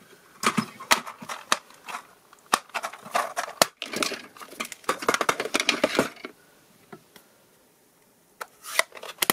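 Paper pieces and crafting tools handled on a cutting mat: irregular taps, clicks and scraping for about six seconds, a short pause, then a few more clicks near the end.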